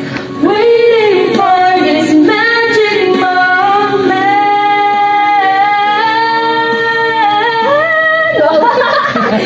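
Female voice singing, sliding between notes and then holding one long note for about three seconds in the middle.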